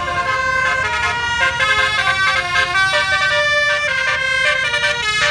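Indonesian bus telolet horn, a set of multi-tone air horns playing a quick tune of changing notes, over a low rumble underneath.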